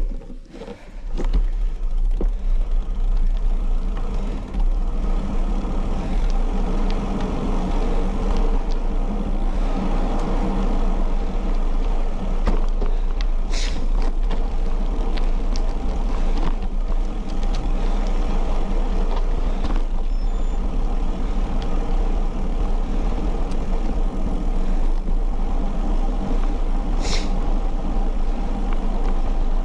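Wind buffeting the microphone of a handlebar-mounted action camera on a moving bicycle, with tyre noise from the road: a steady rushing noise with a deep rumble that sets in about a second and a half in. Two brief clicks come about halfway and near the end.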